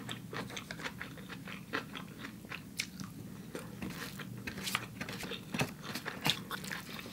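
Close-miked chewing of a mouthful of Vietnamese vermicelli bowl with fresh vegetables and spring rolls: irregular small crunches and wet mouth clicks.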